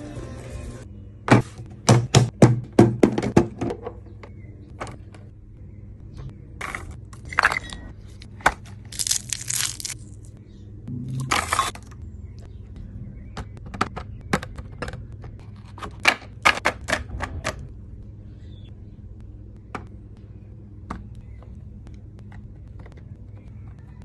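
Snacks being handled and dropped into a plastic snack tray: runs of sharp clicks and taps, thickest in the first few seconds, with two short bursts of rustling or crinkling around nine and eleven seconds in.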